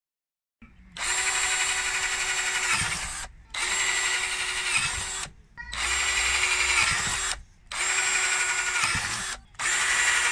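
Power drill with a twist bit boring small holes through a PVC pipe cap. It runs in five short bursts of about two seconds each with brief pauses, one hole after another.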